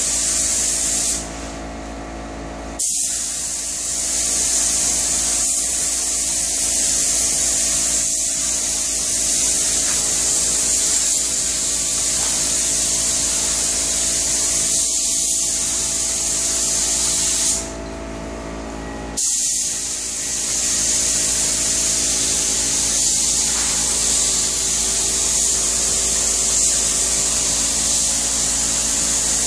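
Compressed-air spray gun hissing steadily as it sprays a top coat of finish onto kitchen cabinets. The trigger is let off twice, about a second in and again just past halfway, each time for a second and a half before the spray resumes.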